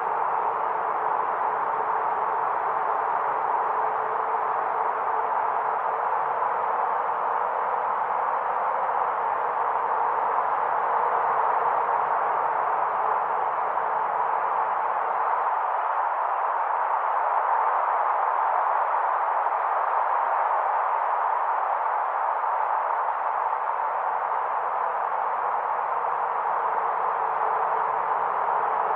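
Steady wind ambience: an even rushing hiss with no gusts, with a faint steady hum beneath it.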